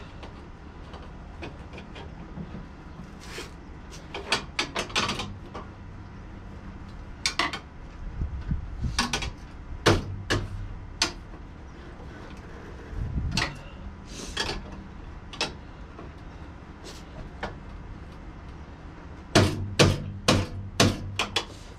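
Hand tools clinking and knocking against the metal mounting hardware of a motorcycle's rear fender and tour-pack bracket. The taps are scattered, with a quick run of several near the end.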